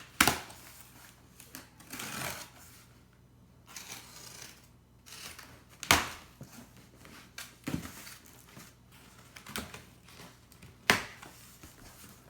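Cardboard packaging being handled and opened: several sharp knocks and taps, with rustling between them.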